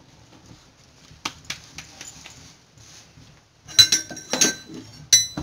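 Hands patting and pressing wet maize-flour dough into a roti, with soft clicks and glass bangles clinking, starting about a second in. In the second half comes a louder run of sharp knocks and ringing metallic clinks.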